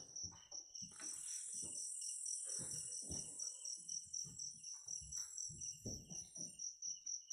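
Crickets chirping in a steady, fast pulsing trill, with the soft, regular thuds of footsteps walking close by.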